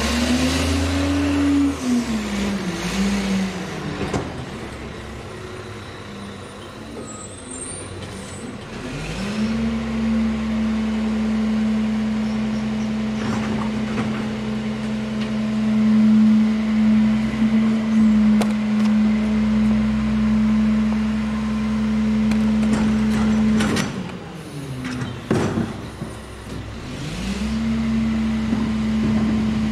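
Crane Carrier garbage truck's diesel engine: it revs up and falls back in the first few seconds, then runs at a steady raised speed for about fifteen seconds. Around three-quarters through it drops away with a few sharp noises, then settles into a steady raised speed again.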